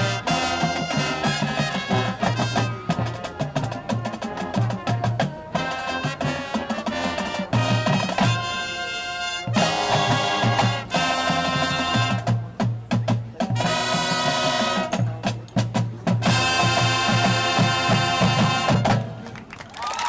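Marching band playing brass chords over a drumline, with long held brass chords about eight seconds in and again from about sixteen seconds. The music stops about a second before the end, as the show finishes.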